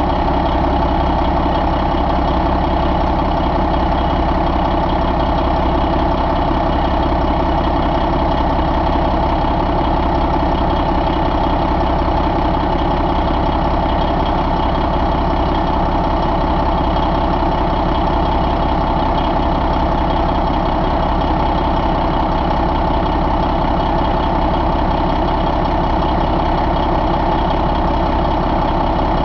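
Detroit Diesel Series 60 12.7-litre inline-six turbo diesel engine idling steadily.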